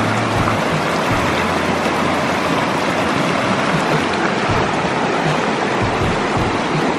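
Shallow, rocky mountain stream rushing over stones close by: a steady, loud wash of moving water.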